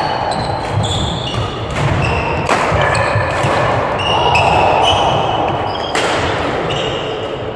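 Badminton doubles rally in a large sports hall: players' footwork thudding on the court floor, with sharp racket strikes on the shuttlecock twice, about midway and near the end, echoing around the hall.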